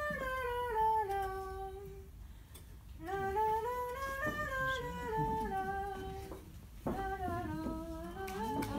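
A woman's voice humming a slow melody in three phrases, held notes stepping up and then down, with short pauses between the phrases.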